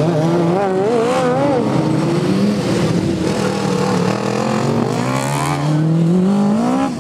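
Engines of racing ride-on lawn mowers running hard as they pass on a dirt track. The pitch wavers up and down with the throttle in the first couple of seconds, and one engine accelerates with a steadily rising pitch over the last two seconds.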